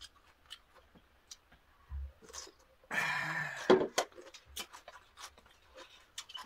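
Eating sounds at a table: scattered light clicks of chopsticks, glasses and containers, with one short, louder breathy sound about three seconds in.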